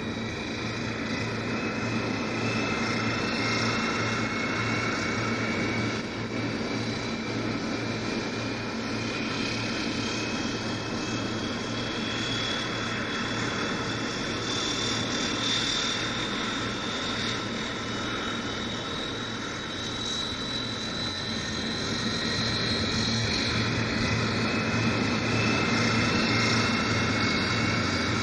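The Ilyushin Il-18's four turboprop engines running, heard from inside the cabin: a steady dense drone with a thin turbine whine that climbs slowly in pitch.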